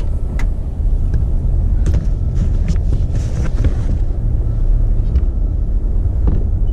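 Wind rumbling on the microphone inside an open car boot, with a few light clicks and knocks as hands move things about in the boot.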